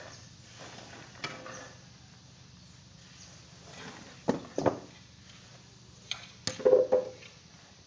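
Long-handled rake working through paddy spread out to dry: a few sharp knocks about four and six seconds in, and a short clatter just before seven seconds.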